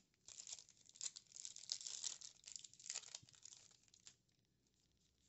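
Foil trading-card booster pack wrapper crinkling and being torn open, a dense run of crackles lasting about four seconds that then stops.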